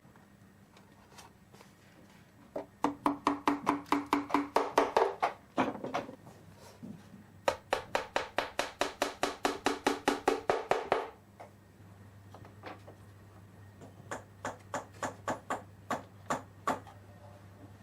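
A small hammer tapping rapidly and evenly, about five or six strikes a second, in two runs, each strike with a short ringing tone. Fainter, sparser taps follow near the end.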